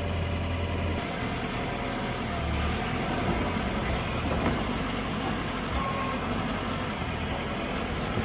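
Diesel engine of a JCB 3DX backhoe loader running steadily while it works, with a couple of faint knocks.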